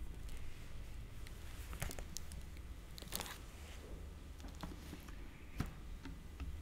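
Faint rustling and a few sharp clicks, scattered through the pause, over a low steady room hum picked up by the lectern microphone.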